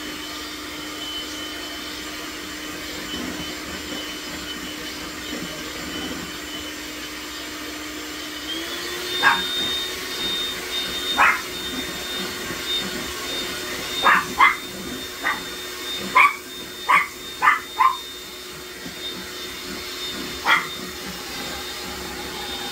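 Electric hand mixer whirring steadily as it beats egg whites while hot sugar syrup is drizzled in; its pitch steps up about eight seconds in. From then on a small dog yips about a dozen times in short, sharp calls.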